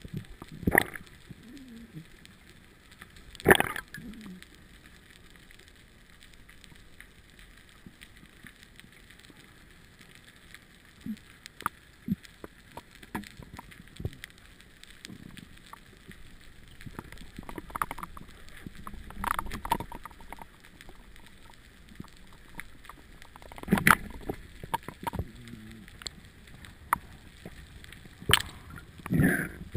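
Underwater sound picked up through a camera's waterproof housing: a faint steady hiss broken by about half a dozen sudden gurgling, knocking noises of water and bubbles around a swimming diver.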